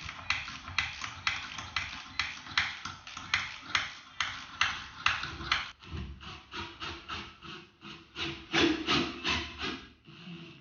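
Rapid, even scraping strokes, about four a second, with a short break a little past halfway: shredded gear-kit debris being scraped and brushed out of a garage door opener's housing.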